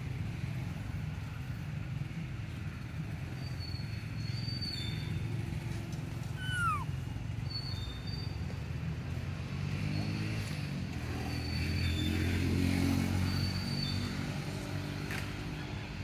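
Motorcycle engine passing over a steady low traffic rumble, swelling to its loudest about three-quarters of the way through. A few short high chirps and one brief falling call are heard over it.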